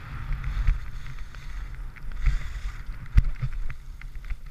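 Skis sliding and scraping over packed, chopped-up snow, with wind buffeting the action camera's microphone as a low rumble. A sharp click about three seconds in.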